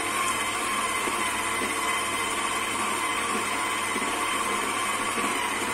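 Electric stand mixer running with a steady whine, its wire whisk beating liquid whipping cream in a steel bowl. This is the start of whipping the cream.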